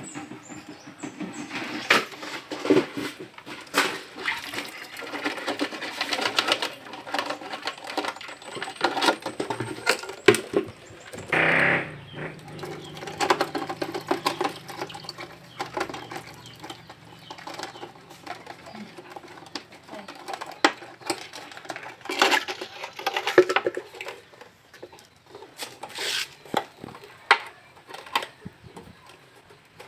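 Thin clear plastic bottles being handled: scattered crinkles, clicks and taps of plastic, with a louder rustle about a third of the way in. A low steady hum runs for a few seconds after that rustle.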